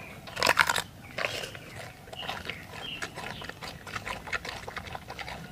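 Giant panda biting and chewing a fresh bamboo shoot: a loud crunch about half a second in, then repeated crunching and chewing.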